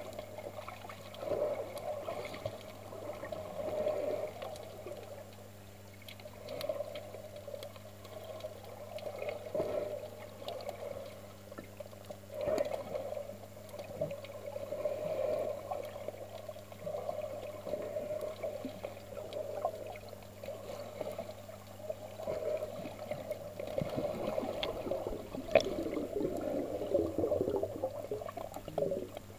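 Muffled water sloshing and swirling around a camera held underwater, swelling and fading every two to three seconds over a steady low hum, with one sharp tap near the end.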